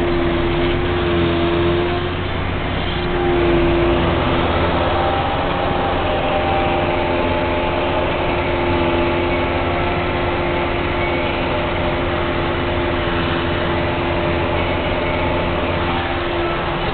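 Tractor and Claas self-propelled forage harvester running together at working speed while chopping grass for haylage, heard from inside the tractor cab: a steady engine drone with a constant whine from the machinery, swelling a little a few seconds in.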